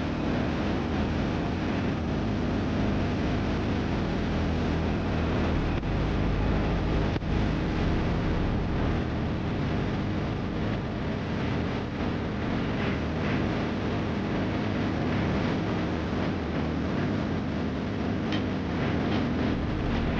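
Segway AT5 ATV's engine running steadily while riding, mixed with the rush of tyre and wind noise.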